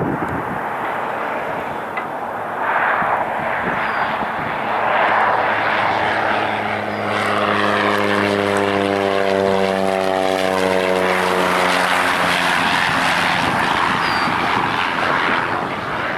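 Single Pratt & Whitney PT6A turboprop of a Cessna 208B Grand Caravan passing close by on landing approach: a propeller drone of several steady tones swells to its loudest in the middle, then drops slightly in pitch as it moves away. A steady hiss runs underneath.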